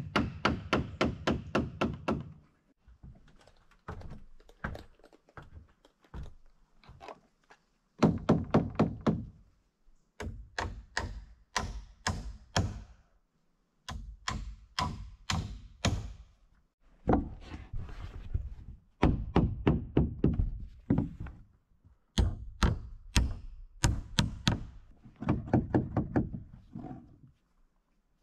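Hammer driving nails into pine framing studs: bursts of rapid, closely spaced blows, each run lasting one to two seconds, separated by short pauses.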